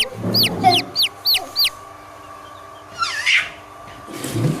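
Baby chicks peeping: a rapid run of high, shrill chirps, about four a second, that stops a little under two seconds in. A short noise falling in pitch comes about three seconds in, and low muffled sounds come near the end.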